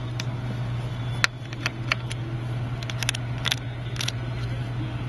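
Scattered sharp little clicks and taps of a precision screwdriver and small screws being removed from an iPad mini's frame, over a steady low hum.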